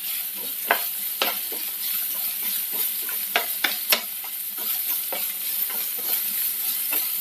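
Sliced onions sizzling in hot coconut oil in a white-coated frying pan, stirred with a wooden spatula that scrapes and clicks against the pan at irregular moments.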